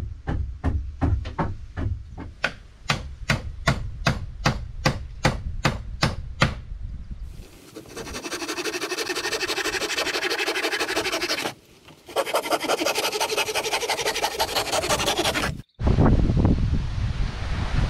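A hammer driving nails into wooden planks, about three blows a second, for the first seven seconds. Then a long steady rasping of wood being sawn, broken by a short pause, and after an abrupt cut a low rushing noise.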